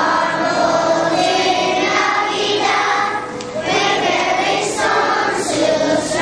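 Large children's choir singing together, with a short dip between phrases a little over three seconds in.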